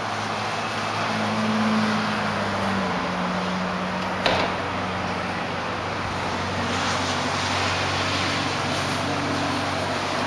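Steady road-traffic noise rising from the city streets far below, with a low steady hum beneath it. A screen door clicks once, sharply, about four seconds in.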